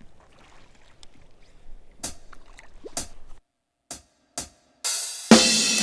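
Faint background noise with a few sharp knocks, broken by edit cuts into dead silence and short clipped bursts, then royalty-free hip-hop/rock background music starts loudly about five seconds in.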